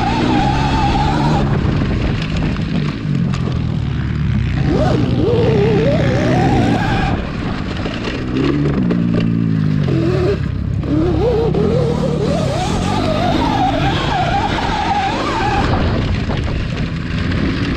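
72V Sur-Ron electric dirt bike ridden hard across rough ground: the motor's whine rises and falls with speed over rushing wind and drivetrain rattle, while a petrol dirt bike's engine revs up and down nearby.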